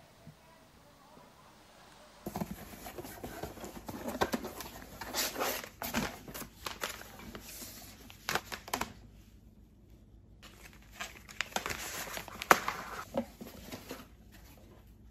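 Packaging crinkling and rustling as coffee bean pouches are lifted out of a cardboard delivery box and handled, starting about two seconds in, with a sharper knock near the end.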